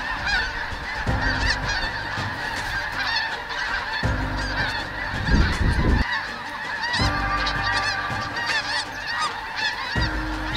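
A huge flock of snow geese calling in flight, a dense, unbroken chorus of overlapping high honks. A low rumble comes and goes underneath.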